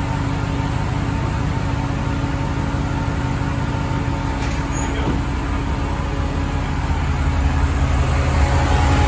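Gen III Hemi V8 idling steadily, a low even engine hum with a faint steady tone above it, getting a little louder near the end.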